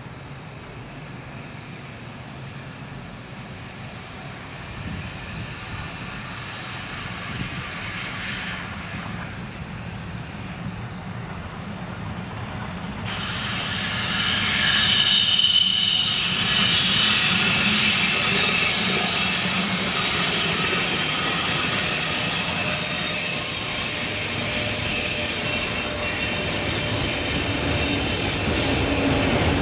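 A container freight train hauled by an electric locomotive approaches and passes on a curve, its wheels squealing in several steady high tones over the rolling rumble of the wagons. It grows much louder about 13 seconds in as the locomotive arrives, and the wagons keep rolling by, squealing.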